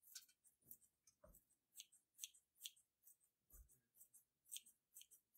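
Kitchen scissors snipping fresh basil leaves, a string of faint, quick snips about two a second.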